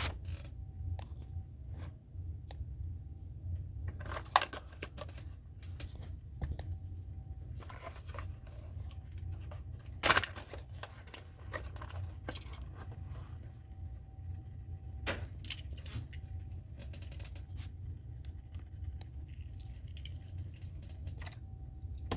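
A toy car's blister card being torn open by hand: scattered crackles, scrapes and sharp clicks of plastic and cardboard, with a few louder snaps, over a steady low hum.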